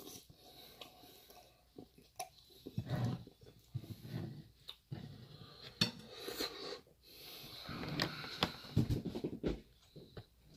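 Eating from a bowl: a metal fork clicks against a ceramic bowl several times, with close chewing and breathing sounds between.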